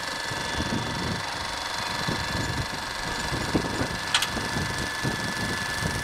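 A 15/70 IMAX film camera running during a take: a steady mechanical whir with a thin high whine over an uneven low rumble, and one sharp click about four seconds in.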